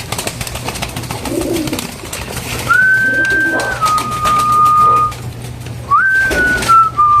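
Pigeons cooing softly, with two long two-note whistles: each a held high note that steps down to a lower held note, about three seconds apart.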